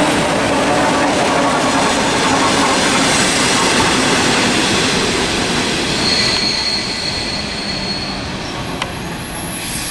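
ER2-series electric multiple unit running on the rails with a steady rumble of wheels and running gear. A thin, high wheel squeal sounds from about six seconds in for about two seconds.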